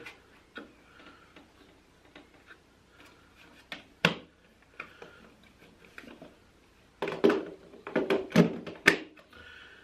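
Parts of a bagless vacuum cleaner's dust container and filter being handled and refitted: light clicks, one sharp click about four seconds in, then a cluster of knocks and clatters near the end.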